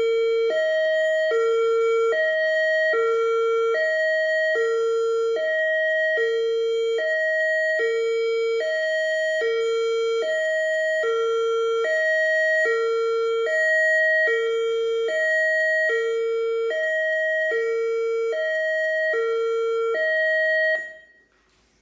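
Whelen Vortex outdoor warning siren high-low tone played through a small Bluetooth speaker in a Lego model siren. Two steady pitches alternate, low then high, switching about every 0.8 seconds, and cut off abruptly near the end.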